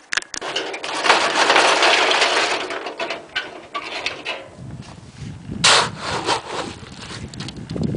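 Concrete of gravel, cement, sand and water being churned in a hand-operated mixer: the gravel grinds and scrapes in rough, uneven bursts, loudest for a couple of seconds near the start, then settling into a lower rumble.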